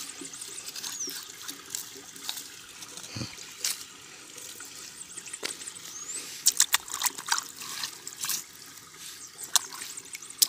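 Shallow water trickling over and through a wire-mesh intake screen, with irregular splashes and sharp clicks as a hand scrapes leaves and sand off the clogged screen. The clicks and splashes are densest past the middle.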